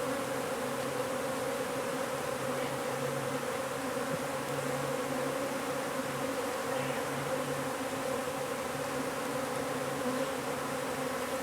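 A mass of honey bees buzzing in a steady, dense drone as their exposed colony is worked open during a hive removal.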